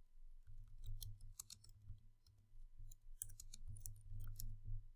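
Computer keyboard keys clicking in quick, irregular runs as a line of code is typed: a short run about a second in and a longer one from about three seconds in. A faint low hum sits underneath.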